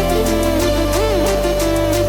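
Background music with a steady beat, a bass line and a moving melody.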